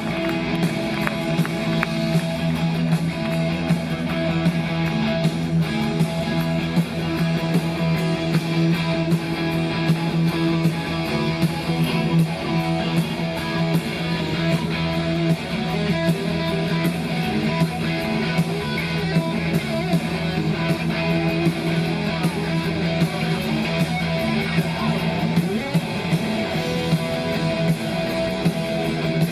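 Live punk rock band playing loud amplified music, dominated by electric guitar with sustained, ringing chords, as heard from the audience.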